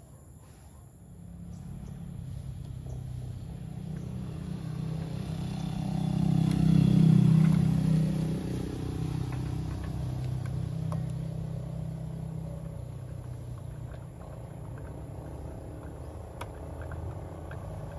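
Low rumble of a passing engine, swelling to its loudest about seven seconds in and then slowly fading.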